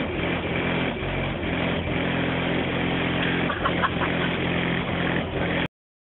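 Car audio subwoofers playing heavy bass at high volume, heard from outside the car as a loud low drone with shifting held notes. It cuts off suddenly near the end.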